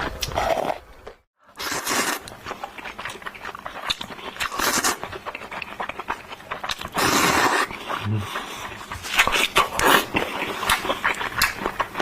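Close-miked slurping and chewing of Korean-style instant noodles: wet smacking clicks with several longer slurps. It drops out briefly about a second in.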